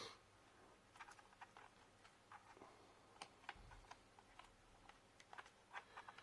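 Faint, irregular small clicks and taps from hands working inside an opened laptop while its network card and cables are being removed, with one soft low bump about halfway through.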